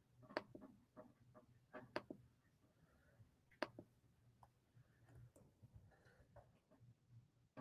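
Faint, irregular clicks and taps over a low steady hum, the sharpest about half a second, two seconds and three and a half seconds in.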